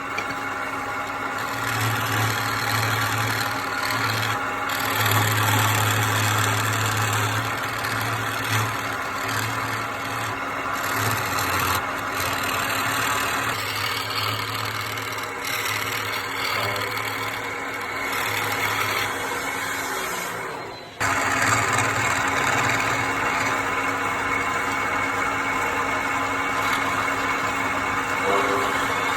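Woodworking power tool running steadily as it works wood, its low hum rising and falling with the load and dropping out briefly about two-thirds of the way through before carrying on.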